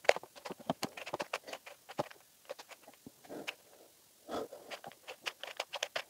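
A cheap dollar-store 3x3 plastic puzzle cube being turned by hand, its layers giving quick, irregular clicks and clacks as they snap round. It is a stiff-turning cube that catches.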